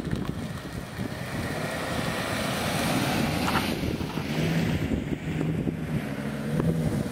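A car driving past, its tyre and engine noise swelling and fading about three seconds in, with wind buffeting the microphone throughout. Near the end a second vehicle's low, steady engine hum comes in as a van approaches.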